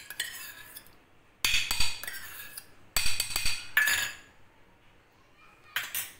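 Steel spoon clinking and scraping against stainless-steel bowls while scooping yogurt, in a few short clattering bursts with a metallic ring: about a second and a half in, around three and four seconds in, and once more briefly near the end.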